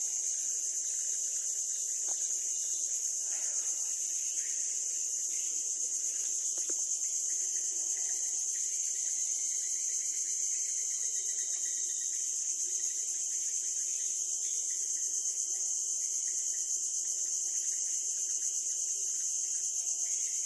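Steady high-pitched insect chorus, continuous and unchanging.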